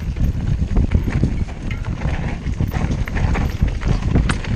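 Downhill mountain bike clattering at speed over a rough dirt trail: knobby tyres on dirt and rocks, with a constant rattle of chain and frame and a dense low rumble.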